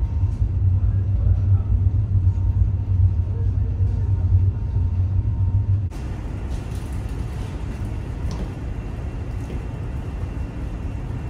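Low, steady drone of the passenger ferry Tachibana-maru's engines and machinery, heard inside its passenger decks. About six seconds in the drone drops away, leaving a quieter, even rumble with a light hiss and a few faint clicks.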